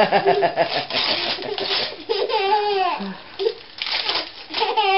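A baby laughing and squealing in short high-pitched bursts, at the start, about two seconds in and again near the end, while Christmas wrapping paper crinkles and tears between the laughs.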